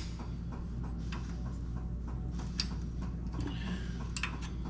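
Scattered light metallic clicks and taps of new brake pads being worked into their retaining clips in a caliper bracket, over a steady low hum.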